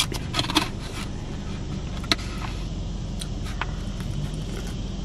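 A few short clicks and taps of a plastic fork against a foam takeout container during eating, a cluster in the first second and a sharp one about two seconds in, over the steady low hum of a car idling.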